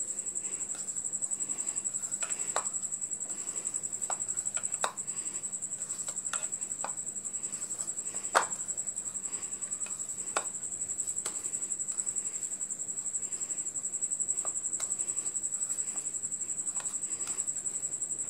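Hand mixing grated boiled potato and breadcrumbs in a bowl: scattered clicks and taps of hand and bangle against the bowl, the sharpest about eight seconds in, over a steady high-pitched whine.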